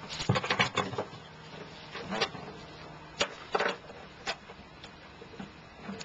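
Clicks and light rattles of small screws and hardware being handled: a quick flurry of clicks in the first second, then a few single clicks.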